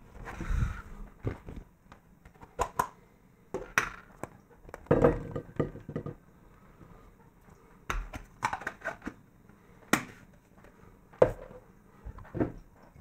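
Plastic Play-Doh tub handled over a ceramic plate: small dough pieces tipped and tapped out of it onto the plate, heard as about a dozen irregular knocks and clicks.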